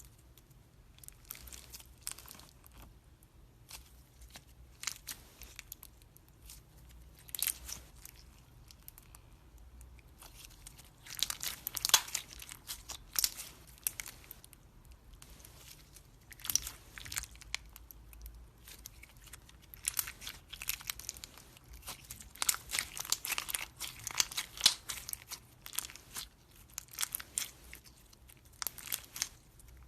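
Slime being squeezed and pressed by hand, giving irregular bursts of crackling and crunching with short quiet gaps between them.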